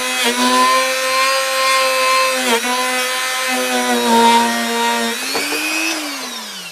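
Small power tool's motor running at a steady high whine while working the guitar's frets, dipping briefly in pitch a few times under load. Near the end it rises in pitch, then spins down and fades as it is switched off.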